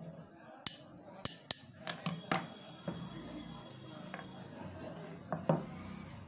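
Small steel parts of a sewing machine's shuttle assembly (bobbin case, shuttle hook and its ring) clicking and clinking against each other and the workbench as they are handled and taken apart by hand. Several sharp clicks come in the first two and a half seconds, and a loud one about five and a half seconds in.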